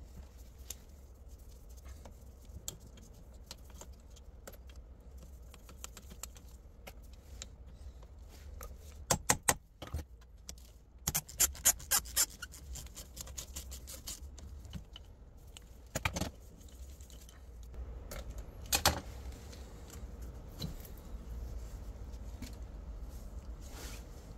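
Hand ratchet clicking in quick runs as the mounting bolts of the gear-shift actuator's electric motor are undone, among light metallic clinks of tool and parts. The two longest runs of rapid clicks come about halfway through.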